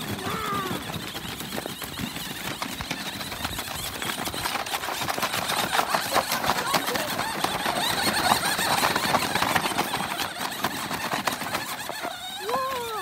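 Toy RC monster truck driving over snow and grass: its small electric motor and gears whirring, with the wheels crunching and crackling. It is loudest in the middle as it passes close.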